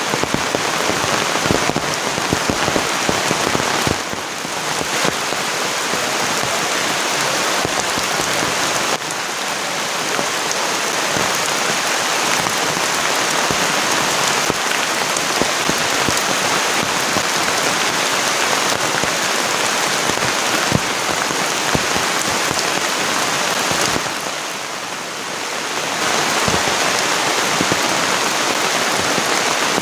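Heavy rain pouring down steadily, a dense hiss full of sharp drop impacts close by, easing briefly twice, about four seconds in and again near the end.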